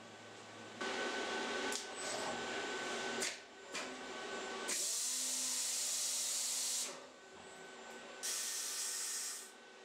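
Robotic welding torch cleaning station (nozzle reamer) at work on a MIG torch: a burst of whirring reamer-motor noise, then a long, high, hissing air blast and a shorter one near the end.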